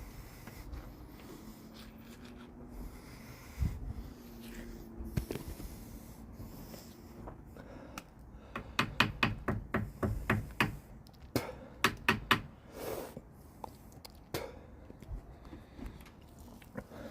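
Several quick runs of sharp taps or clicks, about four or five a second, through the middle, with a few single clicks after. A faint low hum is there at the start.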